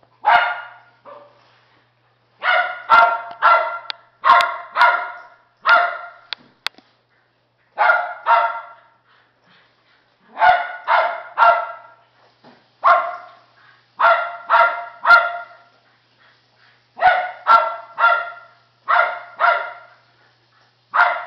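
Jack Russell terrier barking excitedly at a Weasel Ball toy, in quick runs of two to four sharp barks with short pauses between them.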